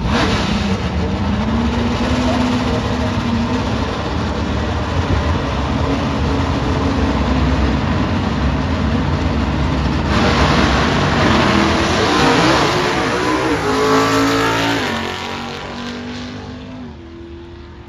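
Manual-transmission drag race cars running hard at full throttle, loud and continuous, growing louder and brighter about ten seconds in. Near the end the engine note changes pitch in steps and fades away.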